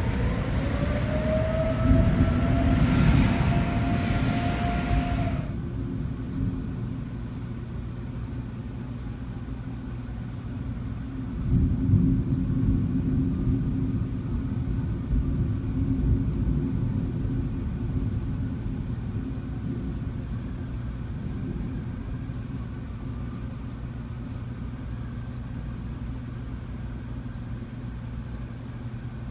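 Outdoor tornado warning siren wailing, its pitch rising for about five seconds before the high sound cuts off abruptly. After that it is heard only faintly, sweeping up and down twice, over a steady low rumble that swells about twelve seconds in.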